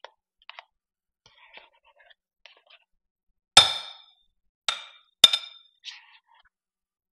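Plastic whipped-topping tub knocked three times against the rim of a glass mixing bowl to shake the topping out, each a sharp clink with a short glassy ring. Faint soft taps and scrapes come between the knocks.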